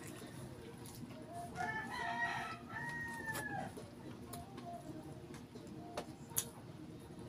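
A rooster crowing once, a call of about two seconds that falls in pitch at the end, with a few sharp clicks afterwards.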